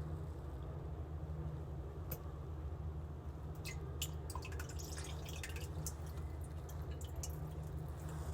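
Liquid dripping into a toilet bowl: a single drip, then from about three and a half seconds in a quick, irregular run of drips, over a steady low hum.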